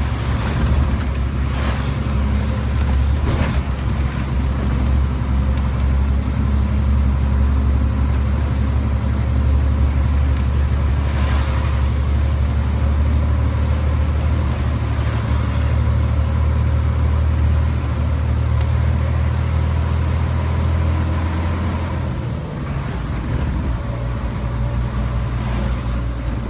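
Iveco Stralis 500 truck's Cursor 13 straight-six diesel pulling hard up a steep grade under heavy load, a steady deep engine drone with a faint high turbo whistle above it. About 22 seconds in, the low engine note drops back.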